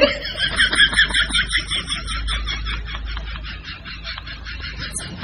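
Rapid bird-like chirping, about five short high calls a second, fading in the second half, over a low steady hum.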